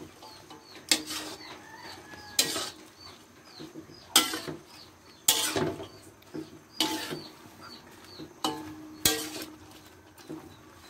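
Metal spatula scraping and clanking against a wok as cabbage and carrots are tossed in a stir-fry, a sharp stroke every one to two seconds.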